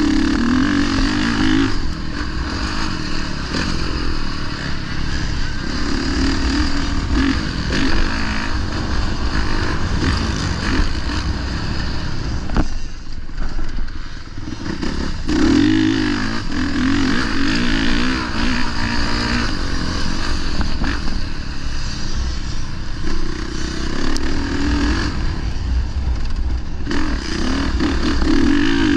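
Honda dirt bike engine under hard throttle, its pitch climbing and falling again and again as it is ridden around a motocross track. The throttle is chopped suddenly about thirteen seconds in and picks up again a couple of seconds later.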